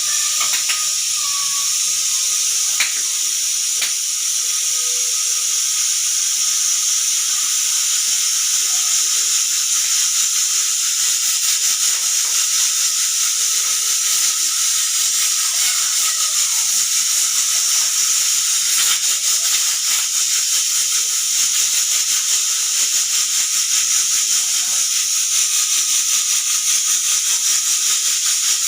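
Pressure cooker whistle releasing steam under pressure: a loud, steady high hiss with a faint tone in it, fluttering rapidly in loudness from about halfway on.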